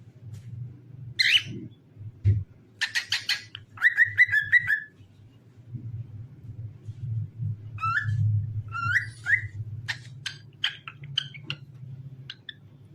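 Cockatiel whistling and chirping: a quick run of calls, a short row of whistled notes, then several rising whistles and scattered chirps, over a steady low hum.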